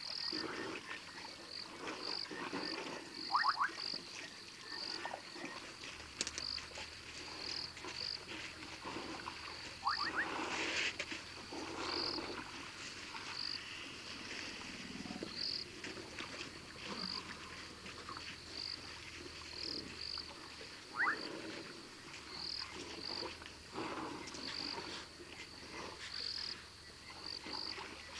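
Frogs calling: a short high-pitched call repeats about once a second, with occasional brief rising chirps between. Beneath them, soft irregular shuffling and splashing from elephants drinking at the water's edge.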